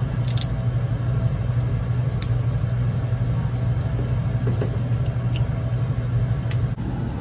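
Steady low droning hum of restaurant ventilation, with a few light clicks from the table.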